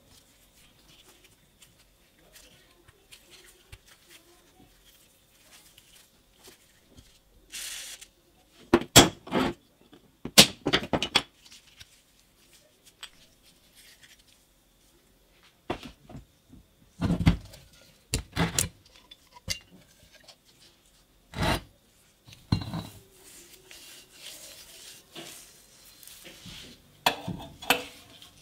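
Steel parts of a vintage air compressor handled on a workbench: a series of separate sharp metal clinks and knocks a few seconds apart, with light rubbing and scraping between them.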